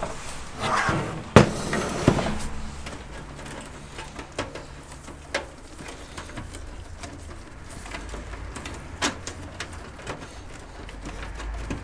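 A desktop PC case being turned over and set down on the bench: a scrape, then a sharp knock about a second and a half in and a second knock just after. Then light rustling and a few small clicks as cables are handled inside the case.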